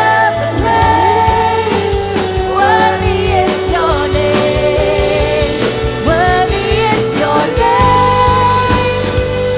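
Live worship band playing a slow praise song, with voices singing long held notes over the accompaniment.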